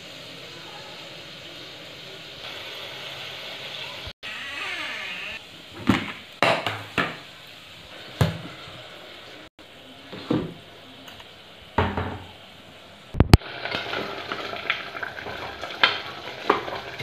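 Scattered knocks and clicks of containers and utensils being handled. From about two-thirds of the way through, a pot of rice, peas and potatoes sizzles as it is stirred with a wooden spatula.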